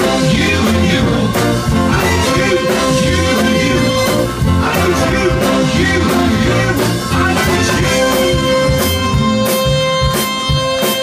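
Live blues band with a horn section of trumpets, saxophones and trombone, backed by drums and keyboards, playing with singing. A long held note sounds over the last few seconds, with sharp drum hits under it.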